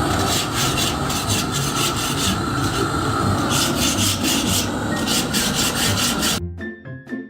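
Harsh rasping, scraping noise made in quick repeated strokes, cutting off suddenly about six and a half seconds in.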